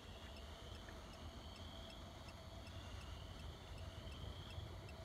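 Quiet background with a faint, regular high ticking, about three to four ticks a second, over a low rumble.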